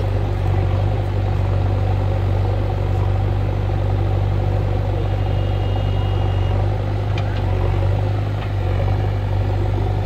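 JCB 3DX backhoe loader's four-cylinder diesel engine running steadily with a deep, even drone as the machine drives forward with its front bucket lowered.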